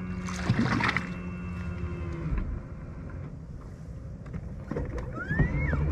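A Power-Pole shallow-water anchor's motor hums steadily on the boat, mistakenly switched on, and stops about two seconds in. Near the end a brief rising-then-falling squeal is heard, and then a deeper, louder hum starts up.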